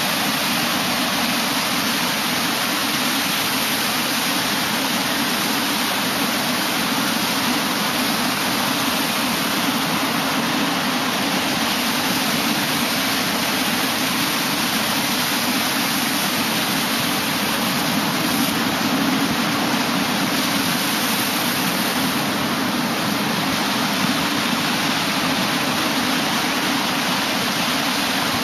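Ocean surf breaking and washing up the beach, heard as a steady, unbroken rush of water without distinct single crashes.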